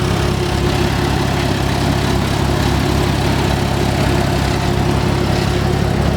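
Porsche 987 Cayman's flat-six engine idling steadily.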